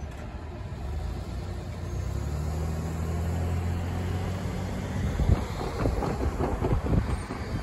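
Cars driving across a railroad grade crossing as the gates lift: an SUV's engine hums steadily for a few seconds, then uneven gusty rumbling of wind on the microphone takes over.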